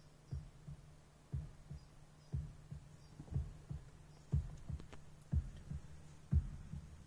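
Music played inside a small car's cabin through newly wired Pioneer TS-G1030F coaxial speakers lying loose on the dashboard: a heavy bass beat about once a second with lighter beats between, over a sustained low bass line.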